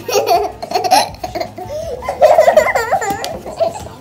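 A young girl laughing in repeated giggles.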